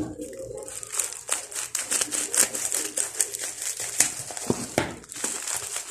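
Plastic bubble wrap crinkling and crackling in irregular bursts as it is handled and cut open with scissors.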